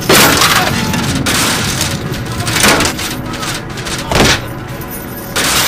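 Film fight sound effects: a metal chain cracking down onto wooden boards, followed by two more heavy hits about a second and a half apart, over a steady low rumble.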